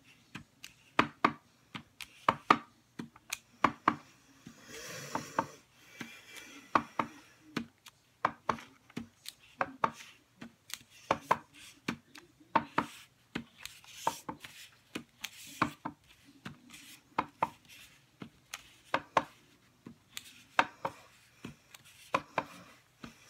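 Clear acrylic stamp block with a small leaf stamp tapped on an ink pad and pressed onto cardstock over and over: a run of sharp taps and clicks, often in quick pairs. A brief paper rustle comes about five seconds in.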